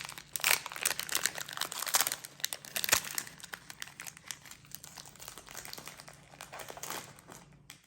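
Foil wrapper of a Pokémon card booster pack crinkling as it is opened and handled, loudest in the first three seconds and then dying away.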